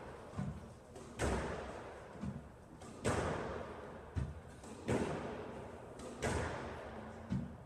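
Squash rally: the ball is struck and slams off the court walls about every two seconds, each hit ringing in the court, with duller thuds in between.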